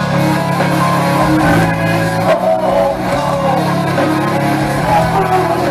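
Heavy metal band playing live through a club PA: electric guitars over held low bass notes, with singing.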